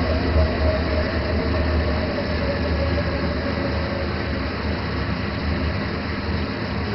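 Washing machine running with a steady low rumble and a faint whine that sinks slightly in pitch over the first few seconds.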